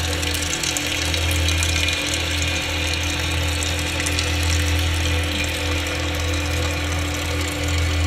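Electro-acoustic ambient drone: a steady deep hum with held tones above it and a haze of hissing, machine-like noise, with no beat or melody.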